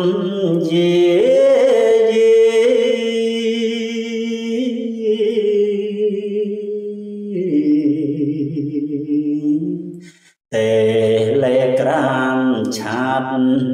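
A man chanting Khmer verse in kakkati metre in the pilap lament style, drawing out long held notes that waver in pitch, with a short break for breath about ten seconds in.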